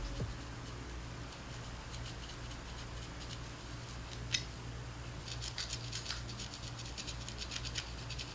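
Crochet hook needle being jabbed repeatedly through a tight dreadlock, making quick dry scratching clicks in the hair. There is one sharper click about four seconds in, and from about five seconds on the clicks come thick and fast.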